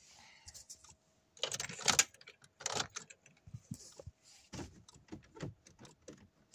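Irregular clicks, rattles and rustling from things being handled up close, louder for a moment about one and a half seconds in.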